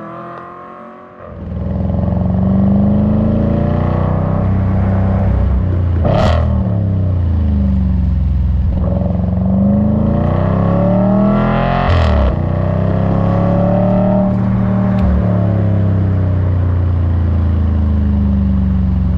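Audi RS5's naturally aspirated 4.2-litre V8, ABT-remapped, through a Capristo exhaust, heard close at the tailpipe under hard acceleration. The note is quieter at first and comes in loud about a second in. It climbs in pitch through the revs, with a sharp crack at each of two upshifts, then the revs fall as it eases off.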